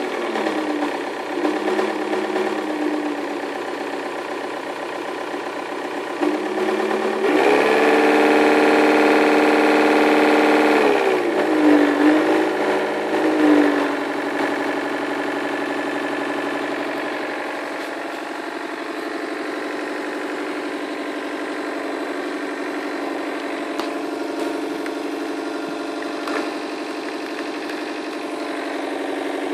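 Turnigy 4250-700 brushless motor on a model aircraft starting up and running at changing throttle. It makes a rumbling buzz like a large six-cylinder diesel truck engine, because the motor sits too tight against the cowl. It speeds up sharply about seven seconds in, runs at its loudest for a few seconds, drops back with a couple of surges, then holds a steady lower speed.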